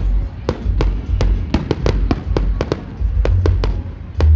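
Fireworks going off in a rapid run of sharp bangs, about four a second, over music with a heavy bass.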